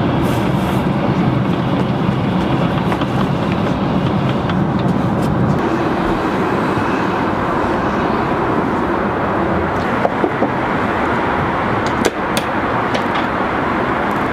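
Steady cabin noise of an Airbus A380 airliner in flight: the even rush of the engines and the airflow, whose low part shifts about five seconds in, with a few short clicks or knocks near the end.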